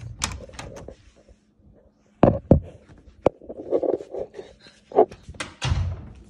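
Handling noise of a handheld phone being carried while walking: scattered clicks and knocks, several sharp ones about two seconds in and a heavier thump near the end.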